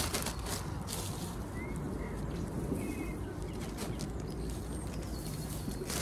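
Rustling of a plastic bag and reed leaves as handfuls of molehill soil are scooped into the bag, with a few faint, brief bird chirps.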